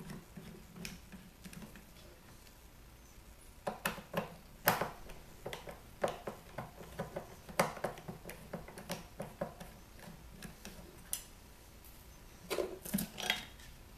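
Hand screwdriver turning out the screws that hold a woofer's metal frame in a wooden speaker cabinet: scattered small clicks and ticks, quiet for the first few seconds, then in uneven clusters, with a few more near the end.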